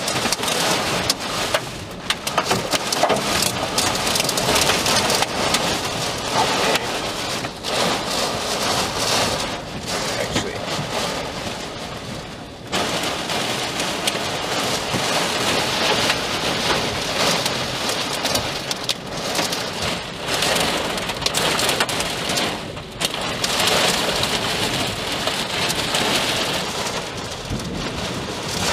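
Heavy rain and storm wind in a steady rushing noise, easing briefly about halfway through, in the rain and wind around a violent tornado.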